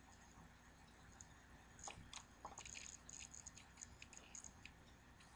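Near silence with a run of faint, quick clicks starting about two seconds in and lasting a couple of seconds.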